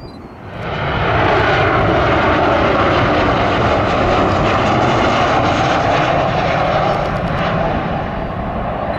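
Jet engine noise from a Boeing 737-800's twin CFM56-7B turbofans on final approach, passing close. It is loud and steady, with an underlying whine. It sets in suddenly about half a second in and eases slightly near the end as the jet flares over the runway.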